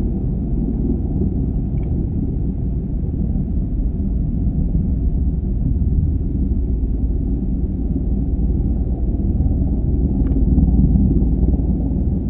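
Eurocopter EC145 helicopter hovering: its twin turbine engines and rotor make a steady low rumble that grows a little louder about ten seconds in.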